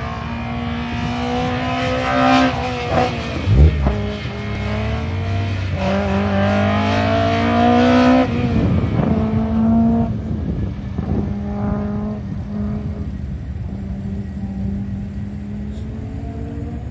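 Fiat 127 Sport's four-cylinder engine revving hard and easing off in turn as the car accelerates and slows between cones. Its pitch climbs steeply to a peak about eight seconds in and falls away sharply, and the engine grows fainter over the last several seconds as the car pulls away.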